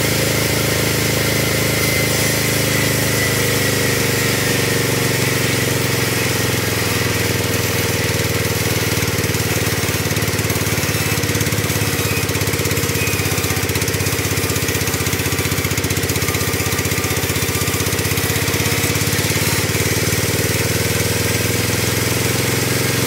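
Sawmill band saw ripping a squared teak log lengthwise, with its drive engine running steadily under the cut. The machine's pitch sags a little through the middle of the cut and comes back up near the end.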